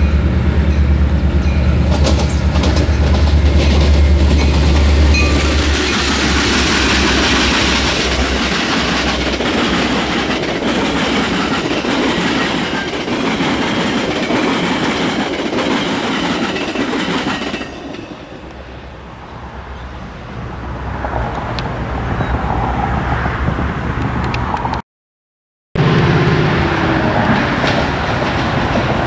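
Metra commuter train passing close: the diesel locomotive's engine drones low and steady, then bilevel passenger coaches rush by with wheels clattering over rail joints. Near the end another Metra diesel locomotive, an MP36PH-3C, approaches with its engine running.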